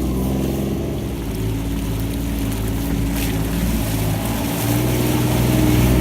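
Kawasaki Mule Pro-DX utility vehicle's three-cylinder diesel engine running while driving, with a steady low drone that gets a little louder near the end.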